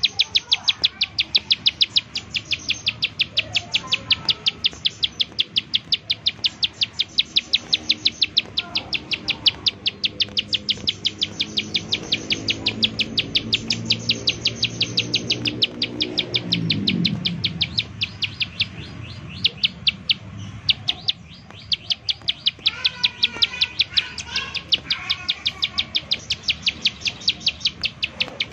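Plain prinia (ciblek sawah) giving its rapid 'nembak' call: a long run of short, sharp, high ticking notes, about four to five a second, with a short break about two-thirds through. Midway a low drone swells and falls away, and other bird notes come in near the end.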